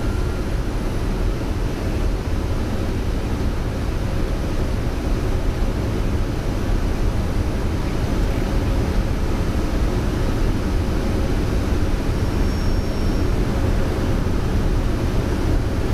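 Steady flight-deck noise of a Boeing 747-200F on final approach: a constant rush of airflow and engine noise, with the landing gear down and flaps at 30.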